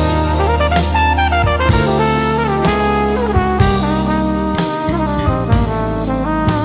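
Background music: upbeat jazz with brass (trumpet and trombone) over a drum kit and bass line.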